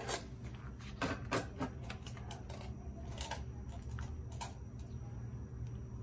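Handling noise from an old Ryobi electric string trimmer and its power cord: a scatter of light clicks and knocks from the plastic housing and cord as they are picked up and moved, ending after about four and a half seconds.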